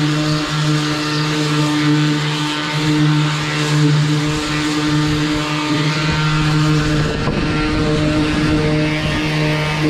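Handheld electric power sander running steadily on the rough edges of the boat's wooden deck: a constant motor hum over the hiss of sanding, which turns rougher for a moment about seven seconds in.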